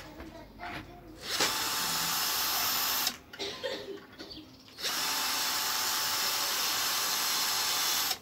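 Cordless drill boring into a wooden plank, running with a steady whine in two long bursts: from about a second and a half in to about three seconds, and again from about five seconds until just before the end.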